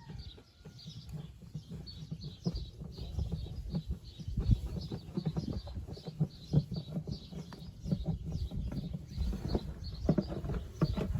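Small birds chirping over and over, with scattered low knocks and rustling underneath.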